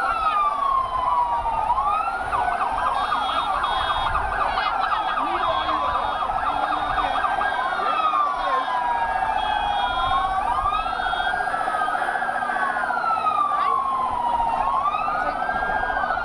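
Sirens of several emergency vehicles in a slow-moving convoy, wailing together. Their rising and falling sweeps overlap out of step, over a steady droning tone.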